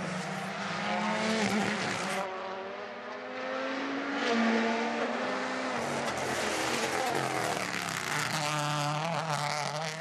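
Toyota GR Yaris Rally1 rally cars' 1.6-litre turbocharged four-cylinder engines revving hard on a tarmac stage, the pitch climbing and dropping again and again through gear changes and lifts off the throttle, across a few separate passes.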